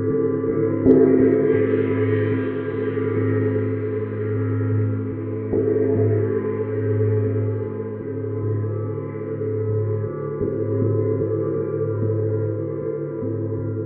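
Neptune planet gong played with a soft mallet: a continuous ringing wash of many overlapping tones over a deep hum, swelling again with soft strokes about a second in and about halfway through.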